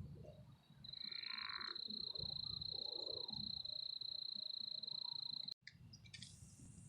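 Dusk pond-side chorus of frogs and insects: a steady high trill that cuts off suddenly near the end, over scattered low frog calls.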